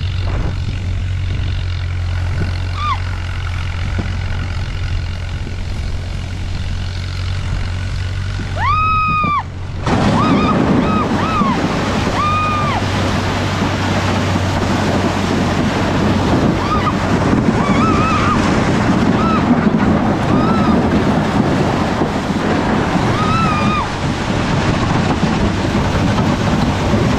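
A towed boat hull sliding over snow behind a tractor, with the tractor's engine a steady low hum. About ten seconds in, a loud rough rushing and scraping from the hull takes over. Several short high cries that rise and fall come through it, the loudest just before the change.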